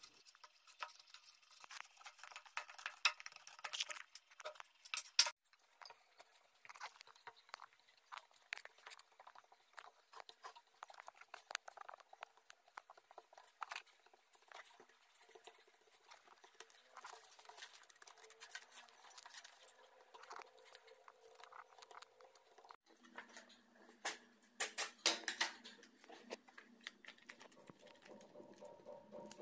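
Hands kneading moist rice-flour dough and grated coconut in a steel bowl, then patting it flat on a banana leaf: faint, irregular soft crackles and pats, with a louder burst of handling near the end.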